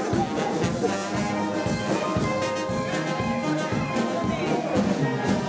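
Live brass band with a tuba playing lively dance music over a steady rhythmic beat.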